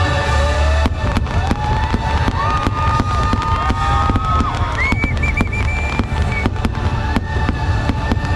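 Fireworks going off in quick succession, many sharp bangs over a deep rumble. A fireworks show's music soundtrack plays underneath with held, gliding melodic lines.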